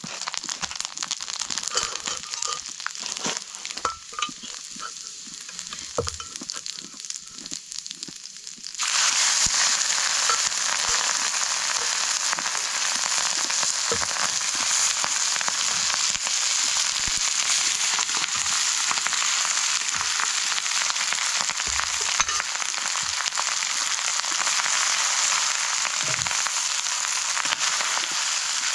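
Rice frying in hot oil in a pan: a steady, loud sizzle that starts suddenly about a third of the way in. Before it come scattered crackles and clicks.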